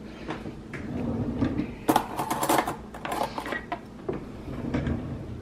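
A kitchen cutlery drawer being opened and metal forks and spoons clinking and clattering as a fork is taken out, loudest about two seconds in.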